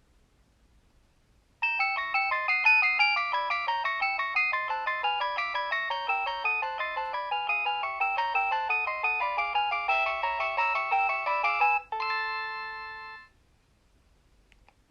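Nokia 3100 mobile phone playing one of its built-in ringtones: a fast melody of short notes starting about two seconds in, ending on a held final note that fades out. Near silence before and after.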